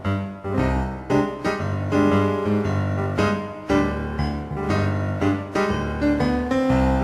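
Piano music, with notes struck about every half second over a strong bass line.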